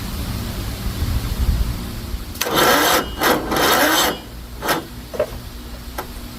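John Deere L110 riding mower's starter motor cranking from a jumper pack clamped straight onto the starter, in three rough grinding spurts of about half a second each, then a few brief clicks and blips. The engine does not catch: the pack has trouble turning the motor over.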